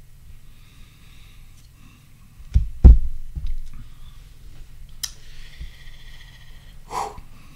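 Two low thumps close to the microphone about two and a half seconds in, the second the loudest, then a faint click and a short rush of breath-like noise near the end.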